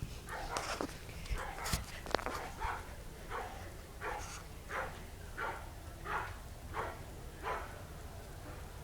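An animal calling repeatedly and fairly faintly: a short call about every two-thirds of a second, a dozen or so in a row.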